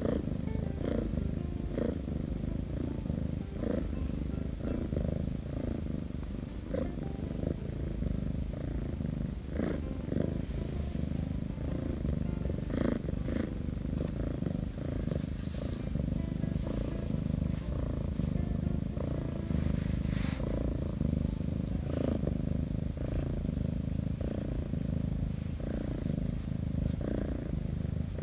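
Korean shorthair kitten purring steadily and without pause while being stroked, with scattered light clicks and rustles from the handling.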